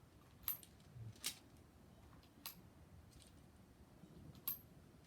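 Four short, sharp metallic clicks spread over a few seconds, from the Crosman SNR 357 CO2 air revolver being handled.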